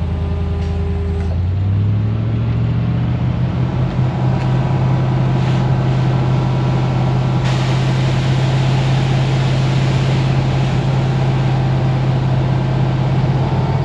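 Diesel engine running steadily; its pitch steps up a little about two seconds in and holds there.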